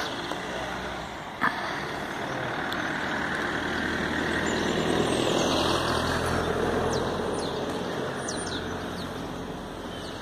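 A motor vehicle passing, its engine and road noise rising to a peak about six seconds in and then fading. There is a single sharp click about a second and a half in.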